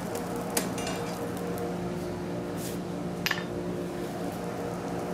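Forge blower running with a steady hum, feeding air to the coke fire for a welding heat. A few light metallic clinks of steel on the forge, the clearest about three seconds in.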